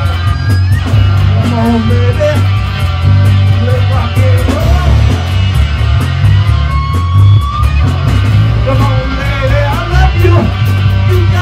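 Boogie-blues rock band playing: a Stratocaster-style electric guitar plays lead lines with bent notes, and a long held note about seven seconds in. Under it run bass guitar and drums with steady cymbal strokes.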